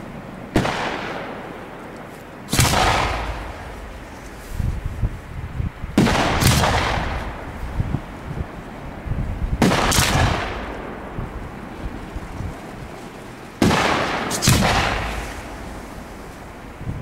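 Aerial firework shells bursting overhead: a series of sharp bangs a few seconds apart, each trailing off in a fading hiss, with a scatter of smaller pops between them.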